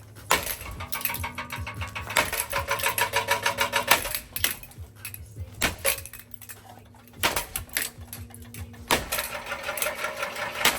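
A running Hunter ceiling fan being smashed: rapid clattering and rattling of broken parts over the hum of its still-turning motor, broken by several sharp knocks and cracks.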